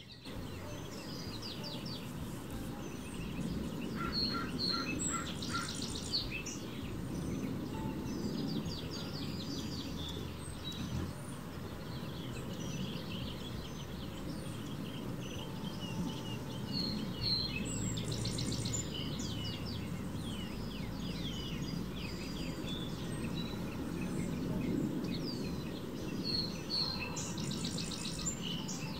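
Several small backyard birds chirping and calling, with many short high notes throughout and a run of four evenly spaced lower notes about four seconds in, over a steady low background rumble.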